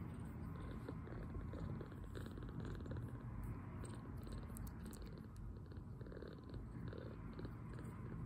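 Two-week-old kitten purring steadily, milk-drunk after a feed.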